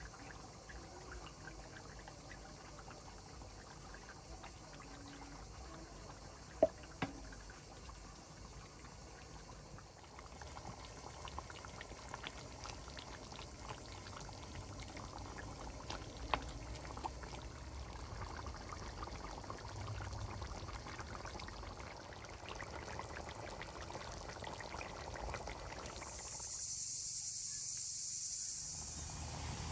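Liquid poured from a bottle into a pot of chicken and herbs, with two sharp clicks partway through. Then the stew simmers with small ticks and clinks as a wooden spoon stirs it. Near the end a steady high insect buzz takes over.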